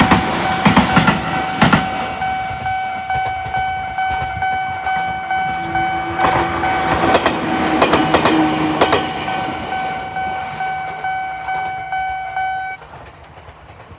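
Japanese railway level-crossing alarm ringing a repeated single-tone ding while a train rolls across, its wheels clicking over the rail joints in clusters. The alarm cuts off near the end.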